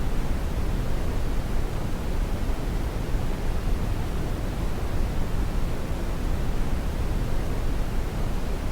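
Continuous white noise played as a baby sleep aid: an even, unchanging hiss that is heaviest in the low end, more of a deep rush than a thin hiss.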